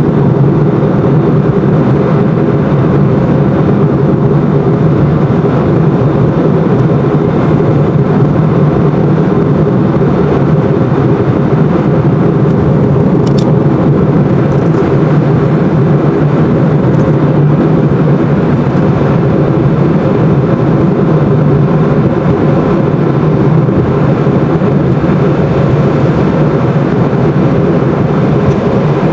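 Steady road and engine noise of a car cruising at highway speed, heard from inside the cabin: a constant low rumble of tyres and engine, with a few faint high ticks about halfway through.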